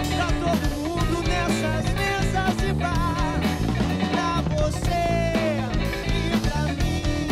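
Rock band playing live: electric guitar, bass guitar and drum kit, with a male singer. Around three seconds in there are wavering notes, and about five seconds in a long note slides down.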